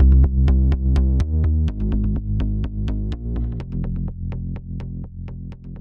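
Electronic backing music with a steady drum-machine beat over synthesizer bass notes, fading out.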